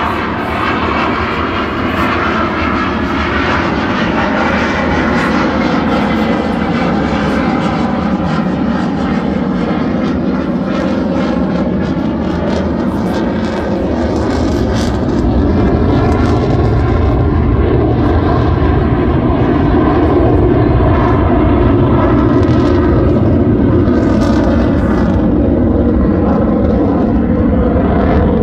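Dassault Rafale fighter jet's twin M88 turbofan engines heard from the ground as the jet flies its display, a continuous loud jet roar that grows a little louder about halfway through.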